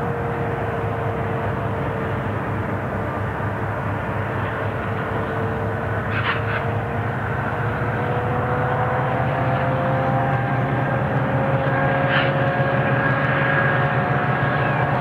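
Diesel locomotives pulling an empty coal train up a grade, heard from a distance: a steady low engine drone with a whine that dips slightly in pitch and then rises. Two brief high-pitched sounds come about six seconds apart.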